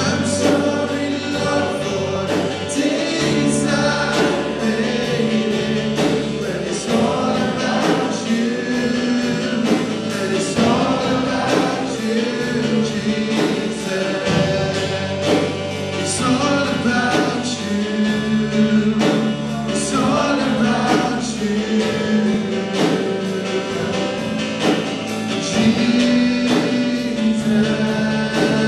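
Christian worship music: a group of voices singing over a band, with a steady drum beat and sustained bass.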